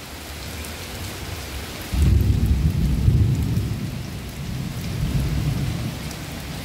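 Heavy rain falling on leaves and paving, with a low rumble of thunder that sets in suddenly about two seconds in and slowly fades, swelling once more before dying back.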